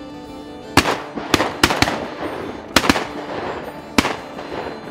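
A volley of shotgun blasts from several waterfowl hunters firing at a passing flock of ducks: about seven shots within some three seconds, several in quick pairs, each echoing briefly.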